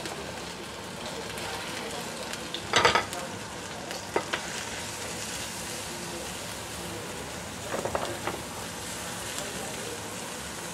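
Minced garlic sizzling steadily in hot oil in a nonstick wok. A spatula scrapes and knocks against the pan a few times, loudest about three seconds in and again near the end.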